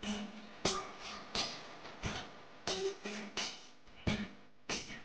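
Background music with a steady percussive beat, about three struck hits every two seconds, each ringing out before the next.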